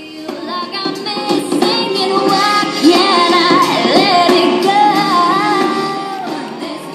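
A song with female singing played through a small motorbike-shaped desktop speaker from a USB stick. It gets louder about a second in and eases off near the end.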